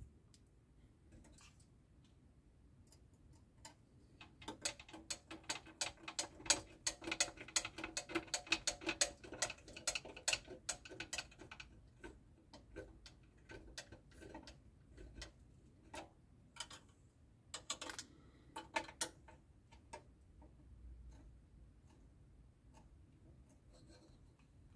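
Small screwdriver driving a tiny screw into the rear door hinge of a 1:8 scale Citroën 2CV model kit. A quiet, rapid run of small clicks and ticks lasts several seconds, then thins to scattered clicks as the screw is tightened.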